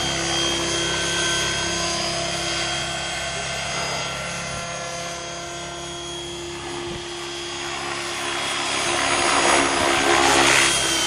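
Electric RC helicopter, a Swift 16 with a Neu brushless motor and 550 mm rotor blades, in flight: a steady motor whine over the rotor's blade noise. The sound eases off in the middle and swells to its loudest near the end with a rush of blade noise.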